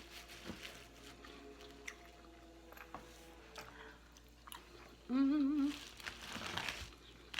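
Close-up mouth sounds of a person eating seafood: soft chewing and small wet clicks, with a short wavering 'mmm' hum of enjoyment about five seconds in, the loudest sound.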